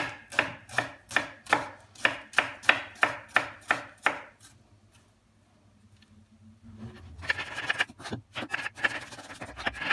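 A chef's knife slices through an onion onto a wooden cutting board, about three cuts a second. The cutting stops about four seconds in. After a short pause, near the end there is scraping and a few knocks on the board as the sliced onion is pushed together.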